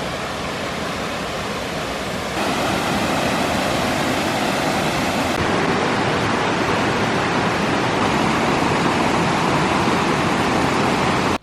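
Waterfall: rushing water making a steady, loud noise. It gets louder about two seconds in and cuts off suddenly at the end.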